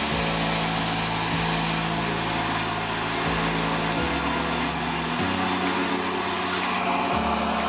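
Sawmill machinery running steadily with a continuous loud rush of noise, under low droning tones that shift abruptly in pitch every second or two.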